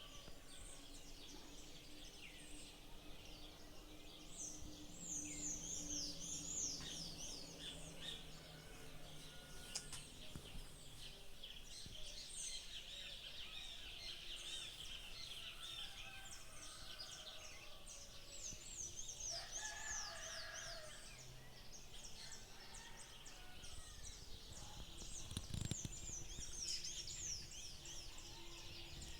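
Birds singing outdoors over a steady background hiss, in repeated phrases of quick, high, falling chirps that come back every several seconds. A lower-pitched call sounds about twenty seconds in, and a soft low thump comes near the end.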